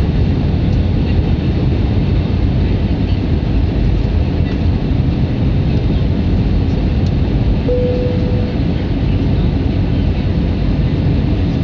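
Steady jet engine and airflow noise inside an Airbus A320 passenger cabin at a window seat, with a brief single tone about eight seconds in.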